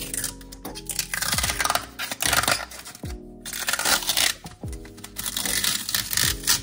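Lo-fi background music with a steady beat. Over it come several bursts of rustling and crinkling from packaging being handled.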